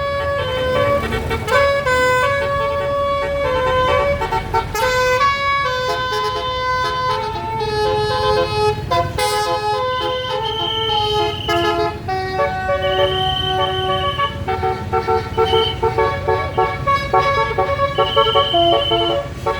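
Basuri telolet multi-tone bus horn playing a long melody of quickly changing stepped notes, with a few held high notes in the second half, over a steady low rumble.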